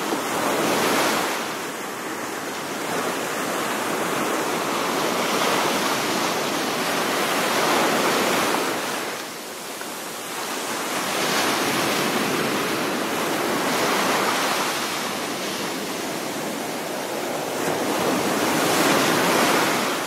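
Ocean waves breaking and washing on a shore, a steady hiss of surf that swells and ebbs in slow surges every few seconds.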